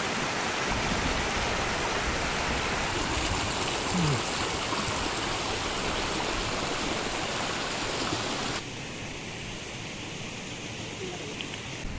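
Shallow mountain stream rushing steadily over a stony bed. About two-thirds of the way through the sound abruptly drops quieter and duller.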